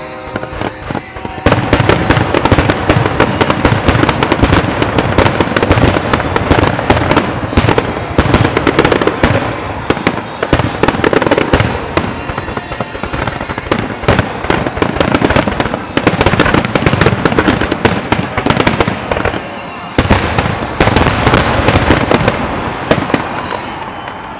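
Aerial fireworks going off in a dense barrage of rapid bangs and crackles, starting about a second and a half in. There is a brief lull near the end before a last burst.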